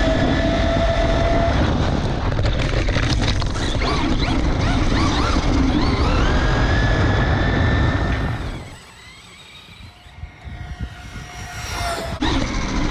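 Electric motor of a Traxxas Rustler 4X4 VXL RC truck whining, its pitch rising and falling with the throttle, over rumbling tyre and wind noise on the onboard microphone. About eight and a half seconds in it drops to a much quieter stretch, then comes back loud near the end.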